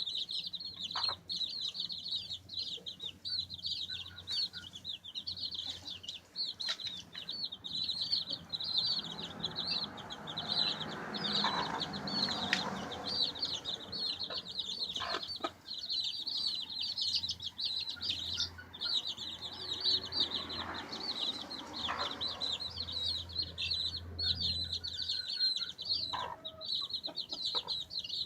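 A group of baby chicks peeping constantly, many quick high chirps overlapping, with scattered taps of pecking and some scratching rustle.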